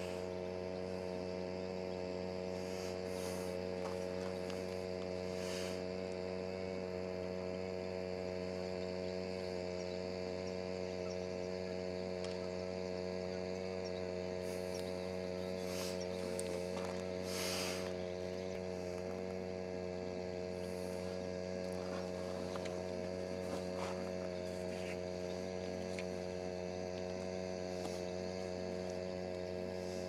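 Steady electrical hum made of several unchanging tones, with a few brief soft swishes, the clearest about 17 seconds in.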